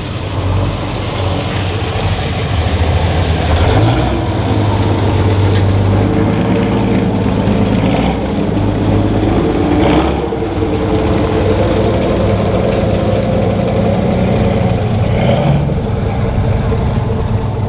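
A vehicle engine running steadily, its speed changing a little now and then.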